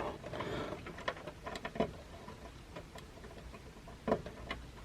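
Faint scattered clicks and taps of a plastic USB header connector and its cable being handled and pushed onto motherboard header pins, with one louder tap about four seconds in.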